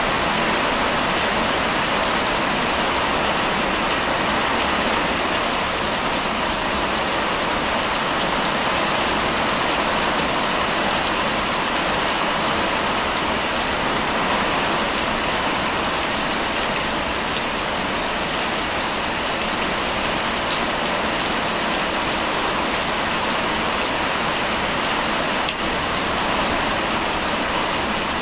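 Heavy rain pouring steadily onto garden foliage and a wet dirt path, an even unbroken hiss.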